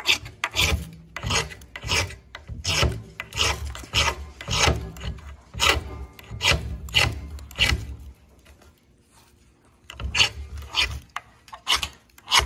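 A knife scraped repeatedly against a small ferro rod held down on a wooden board, striking for sparks into tinder. The rasping strokes come about twice a second, stop about 8 seconds in, and start again about two seconds later.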